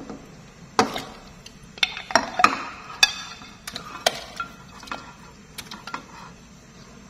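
Chopsticks clinking and knocking against a glass bowl as pork trotters are pushed off it and splash into a pot of simmering broth; irregular sharp clinks, busiest in the first few seconds and thinning out after.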